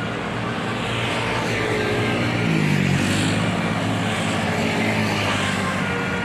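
Tour bus engine running as the bus goes by, its note dropping in pitch about two and a half seconds in, with a rushing noise that swells several times. No horn stands out.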